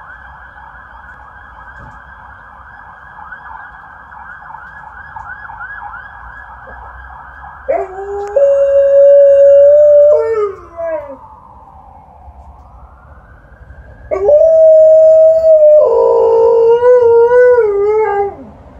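Alaskan Malamute howling twice. The first howl starts about eight seconds in, holds one pitch and then falls away. The second, longer howl starts about fourteen seconds in, wavers and falls at its end.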